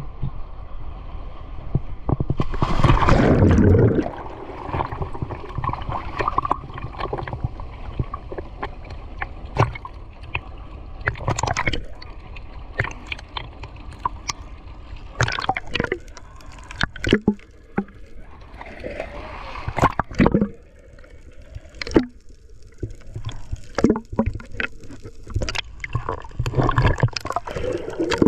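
Sea water sloshing and gurgling around a GoPro camera during snorkelling, with many sharp clicks and knocks and a loud rush of water about three seconds in.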